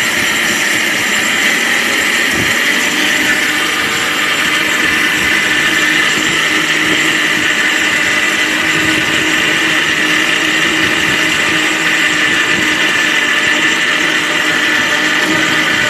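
Ricco 1000-watt mixer grinder running at speed, grinding raw rice into fine powder in its stainless-steel jar: a steady, smooth whir that holds without a break.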